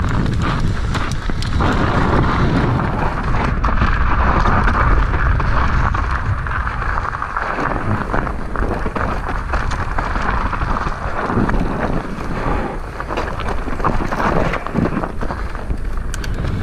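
Wind rushing over the microphone while an electric mountain bike rolls along a dirt trail covered in dry leaves, with tyre crunch and frequent clicks and rattles from the bike.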